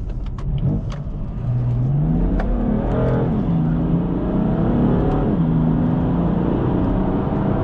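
BMW M4's twin-turbo straight-six, running a Stage 1 tune, under hard acceleration out of a bend. Its pitch climbs and drops at upshifts, about three seconds in and again about five seconds in. The rear tyres grip on the wet road rather than spinning.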